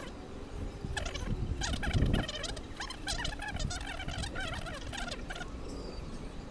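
Many overlapping animal calls, short and rising and falling in pitch, over a low rumbling background, with a short low thump about two seconds in.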